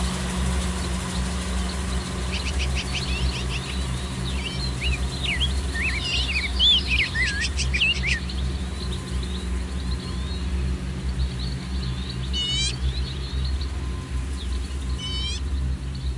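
Kubota DC-70 Plus combine harvester's engine running with a steady low drone. Birds chirp over it from about two seconds in to about eight seconds, and two short, falling call series come near the end.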